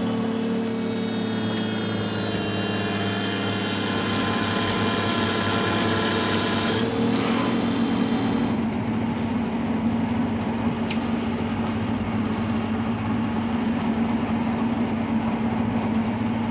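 Engine-driven pipe-bending machine running as a steel pipe is bent. Its whine climbs slowly in pitch, changes abruptly about seven seconds in, then settles into a steady lower drone.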